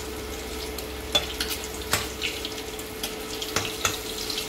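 Boiled eggs sizzling in hot mustard oil in a kadhai: a steady frying hiss, with a few short clicks of a steel spatula against the pan as the eggs are lifted out. A steady faint hum runs underneath.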